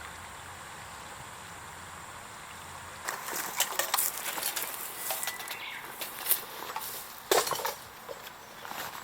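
A steady low hum that cuts off about three seconds in. It gives way to irregular clinking, clattering and sharp knocks of hard objects being handled, with two louder knocks near the middle and toward the end.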